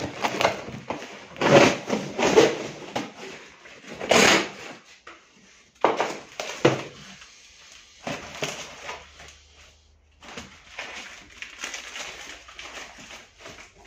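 Cardboard shipping box being cut open with a knife and torn apart by hand: irregular ripping, scraping and crackling of cardboard and tape, then rustling of the wrapping inside.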